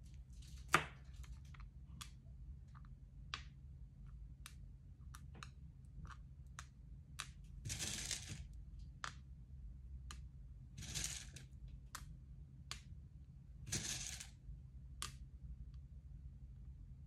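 Small clicks and taps from craft materials being handled at a worktable, with a sharp click just under a second in and three brief swishing or rustling sounds about three seconds apart, over a steady low hum.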